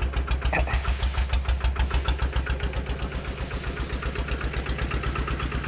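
A small engine running steadily at idle, a low, even chugging of about six beats a second.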